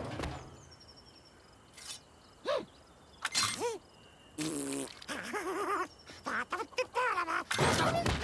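Cartoon Rabbids' gibberish vocalizations: several short squeaky calls and babbles that bend and waver in pitch, starting about two seconds in, over faint high birdsong-like tones, with a louder noisy burst near the end.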